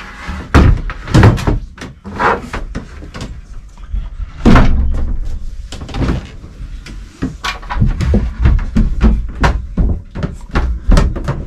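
Wooden engine-hatch floorboards of a small motor cruiser being dropped back into place and trodden on: a run of knocks and thumps. The loudest come about half a second in, about a second in and about four and a half seconds in.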